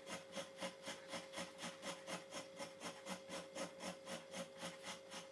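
Dull stainless steel kitchen knife scraping membrane and leftover meat off the flesh side of a fox hide, fleshing it before tanning: fast, even strokes at about five a second.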